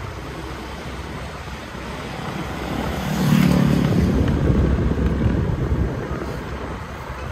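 Motor scooter running steadily as it is ridden along a road, with a louder low rumble building about three seconds in and easing off by about six seconds.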